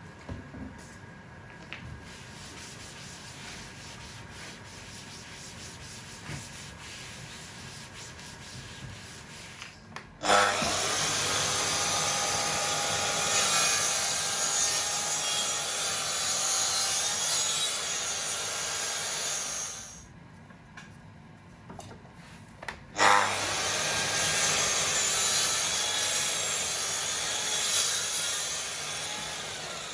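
Power sander working plywood in two long runs, each starting abruptly; the first lasts about ten seconds and the second about seven, trailing off near the end. Quieter scraping comes before and between the runs.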